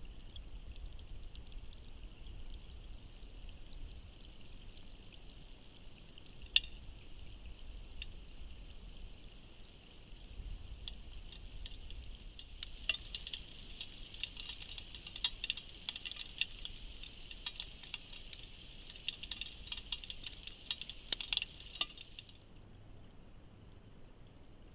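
Rain pattering on the creek surface and around the trail camera: a dense crackle of small drop ticks that builds about halfway through and cuts off suddenly near the end, over a steady faint hiss.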